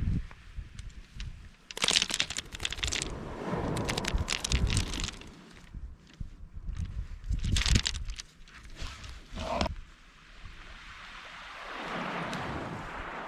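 Irregular clusters of crunching and clattering, sharp clicks bunched together several times, with wind buffeting the microphone and a hissing wash of noise swelling near the end.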